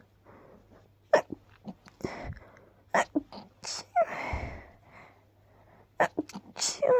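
A person's stifled sneeze about four seconds in, a muffled burst of breath with a low thump, held back to a small "choo". Short, sharp breathy sounds come before it, and another stifled sneeze starts near the end.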